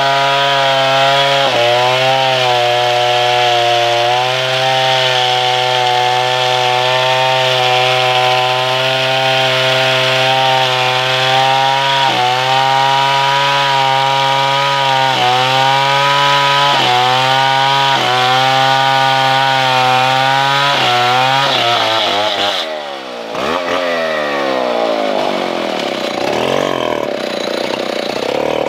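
Stihl 070 two-stroke chainsaw cutting into a tree trunk at full throttle, its engine note dipping briefly every second or two as the chain bites. About 22 seconds in, the engine speed drops sharply, then rises and falls unevenly.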